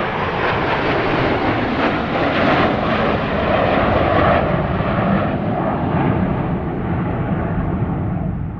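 F-16 Fighting Falcon single-engine jet flying past, its engine a loud, steady roar that peaks a few seconds in, loses its upper hiss as the jet moves away and starts to fade near the end.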